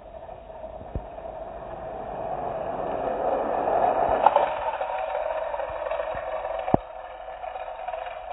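Small die-cast toy car rolling down a foil-covered cardboard ramp and out across a tile floor: a rolling whir that builds to its loudest about four seconds in, with a sharp click near seven seconds.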